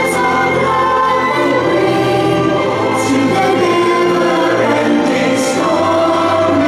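Children and adults singing a slow song together in a choir-like blend, holding long notes.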